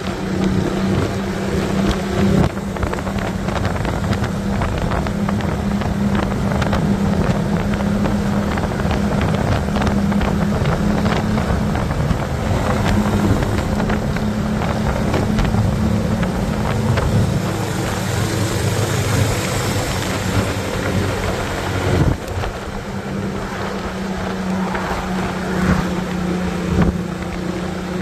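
Motorcycle engine running steadily at cruising speed, with wind rushing over the microphone; the engine note dips briefly about three-quarters of the way through.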